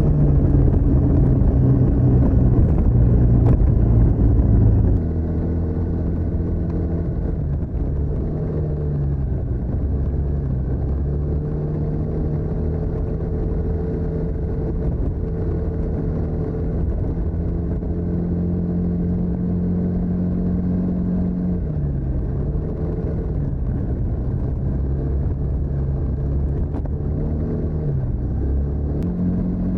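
TVS NTorq 125 scooter's single-cylinder engine running through its stock exhaust. It is louder for the first five seconds, then settles into a steady drone whose pitch dips briefly and comes back up a few times.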